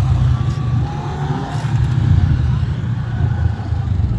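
Low, steady rumble of side-by-side UTV engines running, with faint voices.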